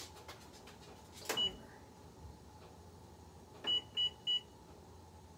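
Electronic oven control panel beeping as its keypad is pressed to set a cooking time. A single key-tap beep comes about a second in, then three quick beeps of the same high pitch near the end.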